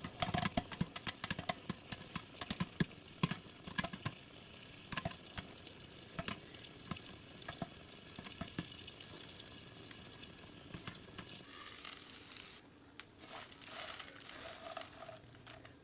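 Food frying in a pan, with crackling pops that come thick and fast at first and grow sparser. A steadier sizzling hiss comes in near the end.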